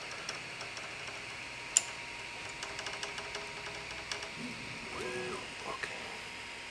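Creality Ender-3 V2 3D printer at the start of a print: its fans whir steadily. There is a sharp click about two seconds in and a short motor tone about five seconds in.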